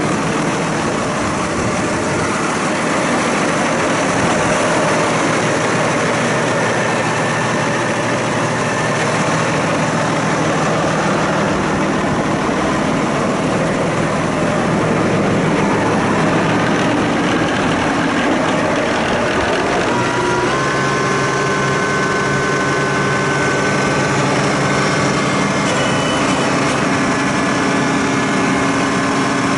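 Case Maxxum MX170 tractor's Cummins diesel engine idling steadily. Its note shifts slightly about two-thirds of the way through.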